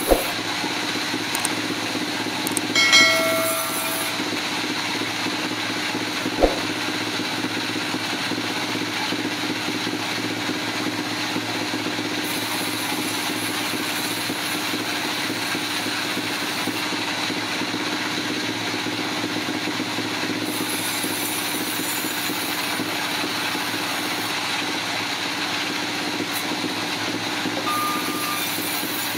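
Steady drone of heavy machinery running, with a brief tone about three seconds in and a sharp click at about six and a half seconds.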